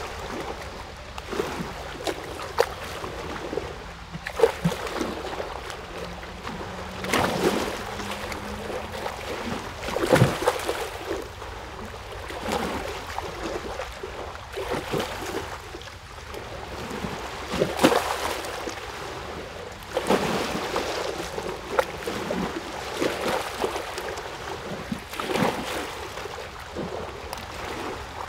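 Water lapping and splashing in irregular surges every few seconds, over a steady low wash.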